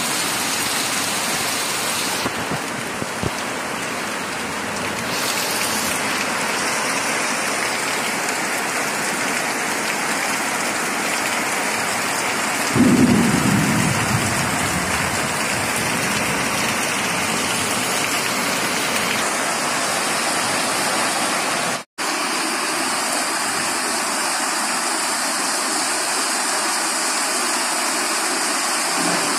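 Heavy rain pouring steadily, with a roll of thunder about halfway through. The sound drops out for a moment about three-quarters of the way through.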